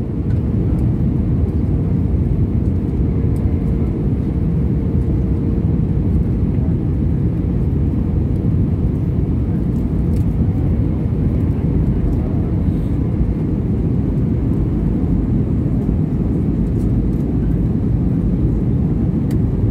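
Steady cabin noise inside an Airbus A320-214, heard from a window seat: a low, even rumble of its CFM56 engines and airflow. A faint steady hum sits on top for the first several seconds, then fades.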